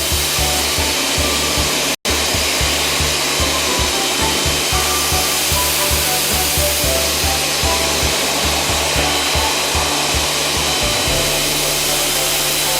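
Ultra-high-pressure air-conditioner washing robot running, with a loud, steady hiss of spray and pump noise, under background music with a steady beat. The sound cuts out for an instant about two seconds in.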